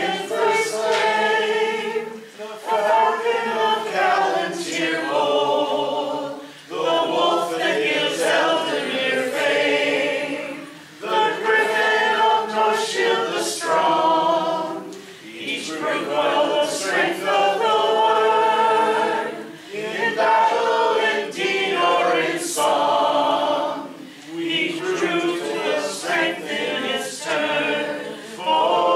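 A mixed group of men and women singing a song together unaccompanied, a cappella, in phrases a few seconds long with brief pauses between them.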